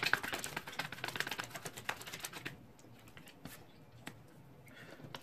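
A deck of oracle cards shuffled by hand: a rapid patter of card flicks for about the first two and a half seconds, then a few single taps as cards are laid down on a wooden table.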